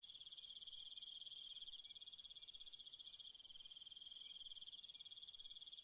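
Faint, steady chorus of insects trilling high and continuously, without a break.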